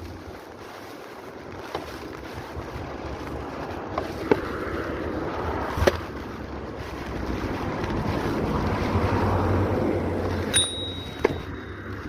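Wind rumbling on the microphone with the noise of moving outdoors, swelling toward the middle, with a few sharp clicks and a short high ding about ten and a half seconds in.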